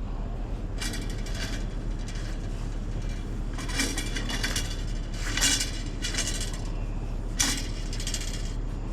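Light metal scrap clanking and rattling as it is pulled and shifted around in a dumpster, in several separate bursts of metallic clatter with a ringing edge, the sharpest about seven and a half seconds in.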